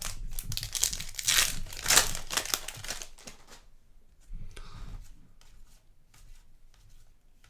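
Crinkling and tearing of a trading-card pack wrapper for about three seconds, then fainter scattered clicks of cards being handled.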